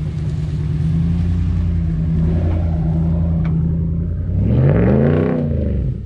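Ram 1500's Hemi V8 engine running under throttle as the pickup drives across a field. About four seconds in it revs up and back down over a second or so, the loudest moment.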